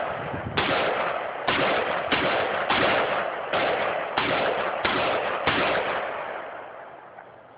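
A string of about eight gunshots, fired roughly one every two-thirds of a second, each with a long echoing tail; the sound fades out near the end.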